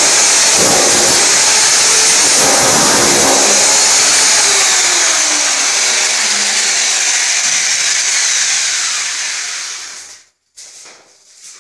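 Hammer drill chiselling a pipe groove into a gypsum-slab wall, hammering loudly for the first few seconds. The noise then tapers off and stops shortly before the end.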